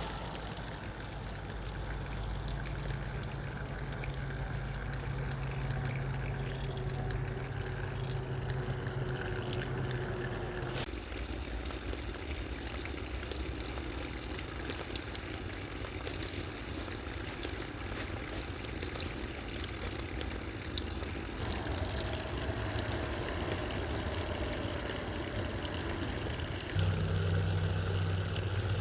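Small waterfall trickling and splashing down a rock face, over the steady drone of highway traffic. The traffic hum grows louder near the end.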